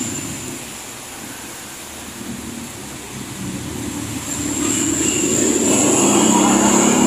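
Motorcycle and scooter traffic passing on a busy road: engines fainter at first, then growing louder from about four seconds in as a group of motorbikes goes by. A thin, steady high whine sits over it.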